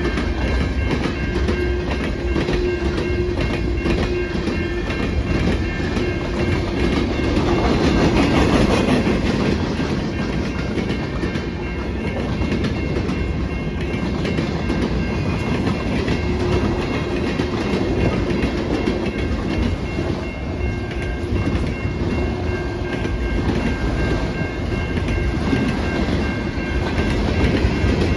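Freight train cars rolling past at track level, their wheels clacking and rumbling over the rails in a steady, continuous run, swelling slightly about a quarter of the way through.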